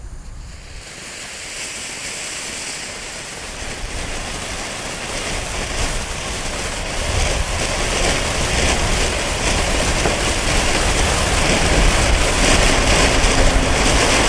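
Small Diamond Fireworks ground fountain spraying sparks with a steady hiss that grows louder over several seconds.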